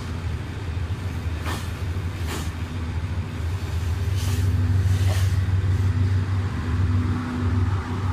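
Passenger coaches of a departing train rolling past: a steady low rumble of steel wheels on the rails, with two pairs of louder clattering sweeps, each pair about a second apart, as the wheel sets go by.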